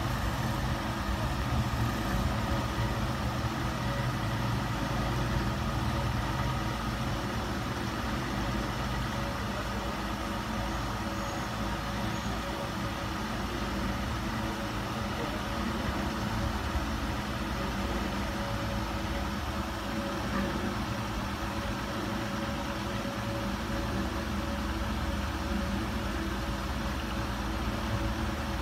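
Steady low machine hum with a few faint steady whining tones over it, unchanging throughout.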